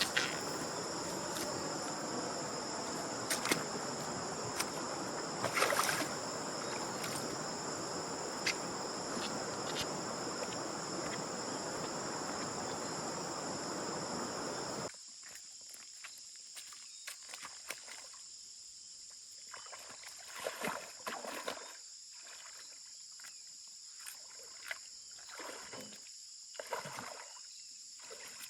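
A steady rush of water with insects droning on two high tones and a few sharp knocks. About halfway through it cuts off abruptly, leaving quieter, irregular sloshes and splashes of water over the same insect drone.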